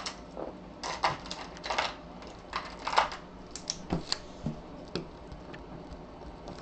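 Irregular light clicks and taps at a desk, about two or three a second, each one short and sharp.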